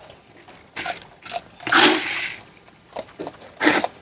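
A few irregular clicks, knocks and scrapes, the loudest about two seconds in and another near the end, as a caged civet eats dry dog food from its dish behind wire mesh.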